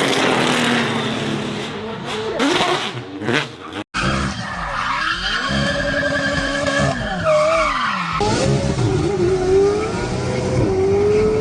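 Cars drifting: engines revving up and falling back while tyres squeal and skid. An abrupt cut about four seconds in changes to another car revving.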